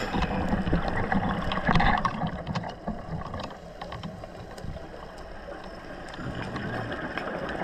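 Underwater sound picked up through a dive camera's housing: a scuba diver's exhaled bubbles gurgling for the first two seconds or so, loudest near the end of that burst, then a quieter steady hiss with scattered faint clicks.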